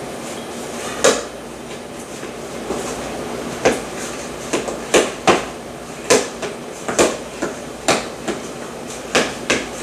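A dozen or so sharp, irregular knocks and clacks of kitchen things being handled and set down on a counter, coming more often after the first few seconds, over a steady background hiss.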